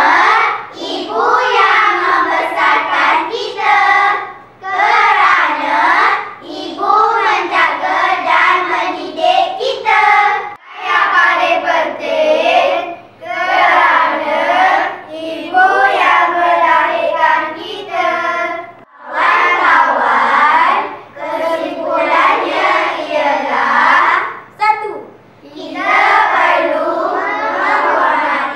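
A group of school children voicing a choral speaking (bicara berirama) piece in unison, chanted and sung in phrases of a few seconds with brief breaks between them.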